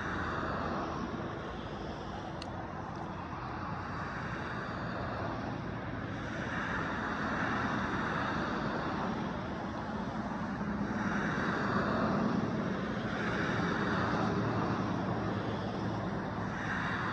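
Road traffic: several cars driving past one after another, the tyre and engine noise swelling and fading as each goes by.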